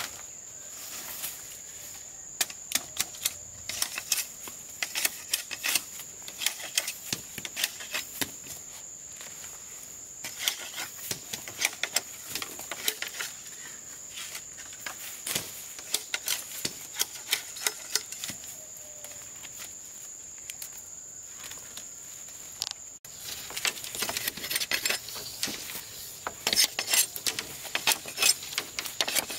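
Steady high-pitched insect drone in the forest, overlaid by many irregular sharp clicks and taps from hands-on work or movement close by.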